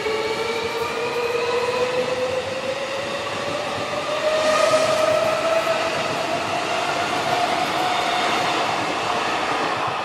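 Tokyo Metro 16000-series train running alongside the platform, its traction motors giving a whine that climbs steadily in pitch as the train gathers speed, over a rush of wheel and track noise. A brief hiss rises about halfway through.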